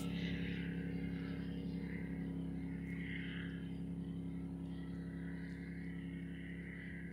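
Distant motorboat engine droning steadily across the water, slowly fading.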